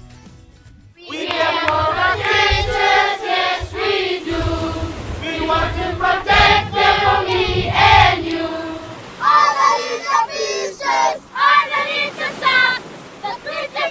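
A group of children singing a song together, starting about a second in.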